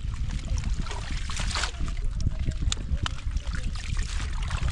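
Water splashing and trickling, with a few sharper splashes or drips among irregular small water sounds, over a steady low rumble.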